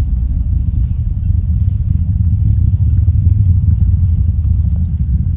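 Falcon Heavy rocket's engines at launch, heard from a distance: a loud, low, steady rumble that swells a little midway.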